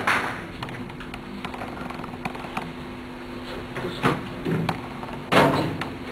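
Applause dies away at the start, leaving a quiet hall with a steady low hum. A door is pushed open, with a soft thud about four seconds in and a louder one about a second and a half later.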